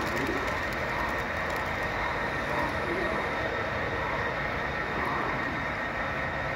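HO scale model passenger train rolling along the layout track, a steady running noise.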